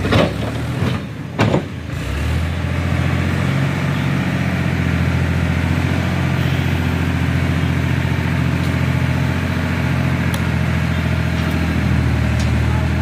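Tractor diesel engine running steadily as it drives the hydraulic tipper that lifts a trolley bed full of sand. Two sharp knocks come in the first couple of seconds, then the engine settles into an even drone.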